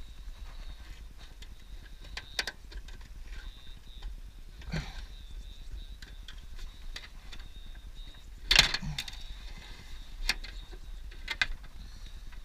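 Hand tools working a sheet of aluminium roof flashing: scattered clicks and metallic knocks, the loudest a sharp knock a little past the middle, over a steady low background rumble.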